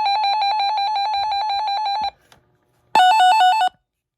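Electronic siren alert tone from a weather alert radio during its alert test: a loud, fast warble that cuts off about two seconds in. A moment later comes a shorter, louder burst of a slower two-tone warble, alternating between a higher and a lower pitch.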